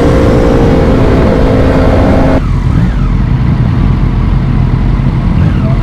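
Sport motorcycle engine running hard at steady revs, loud and pitched; about two and a half seconds in, the engine note drops away abruptly, leaving a lower steady drone.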